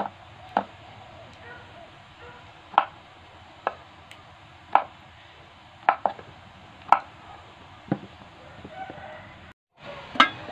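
Kitchen knife chopping a block of tempeh into cubes on a wooden cutting board, each cut ending in a sharp knock on the board, about one a second.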